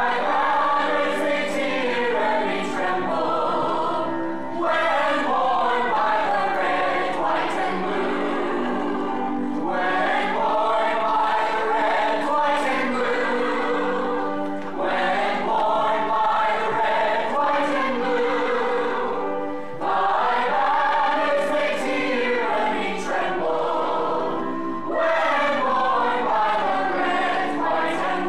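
A musical-theatre ensemble singing as a choir in long phrases of about five seconds each, over sustained accompaniment.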